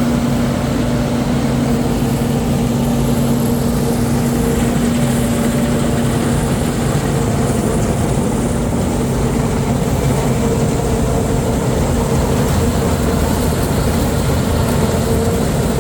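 Harvest machinery's diesel engine running steadily, with a constant hum; one of its tones fades out about halfway through.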